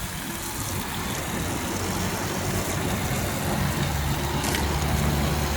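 Water-spray pump motor running with a steady hum, its tone firming up about halfway through, under the hiss of water spraying onto the air conditioner's indoor coil to wet it before cleaning.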